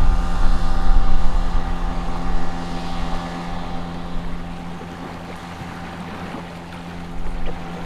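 Boat outboard motor running at a steady speed, with wind buffeting the microphone that eases off about halfway through.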